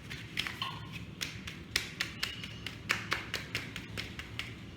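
Hand sieve being tapped repeatedly to sift flour mixed with baking powder: quick, irregular taps, about four or five a second.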